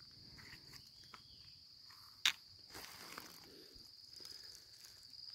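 Insects droning steadily at a high pitch, with faint rustling footsteps on dry leaf litter and one sharp click about two seconds in.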